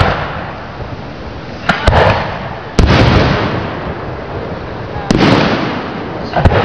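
Aerial firework shells bursting overhead: a quick double bang about two seconds in, another bang near three seconds, one just past five seconds and one near the end. Each bang trails off over about a second.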